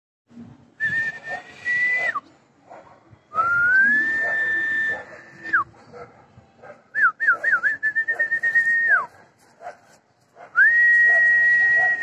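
A person whistling four long, steady high notes. Each note ends in a quick downward slide, and the third opens with a few short warbles.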